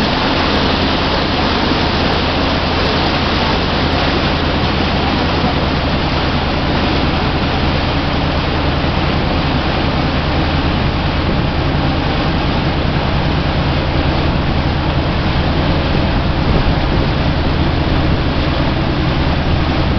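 Motor launch under way at cruising speed: a steady low engine hum under a loud, even rush of water from the churning wake.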